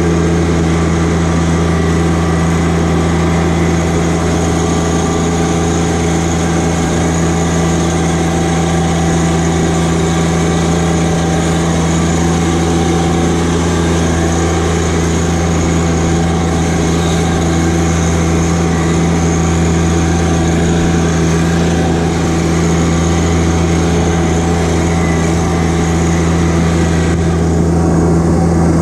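John Deere 1025R compact tractor's three-cylinder diesel engine running steadily under the operator while the tractor drives along, a constant low hum with a higher whine above it. The higher hiss thins out near the end.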